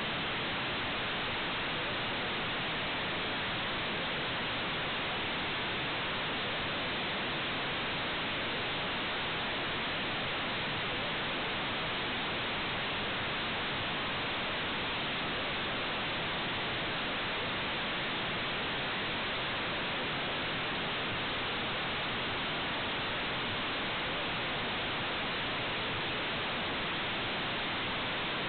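Steady electronic hiss from a security camera's built-in microphone audio, even and unchanging, with no voices or other sounds coming through.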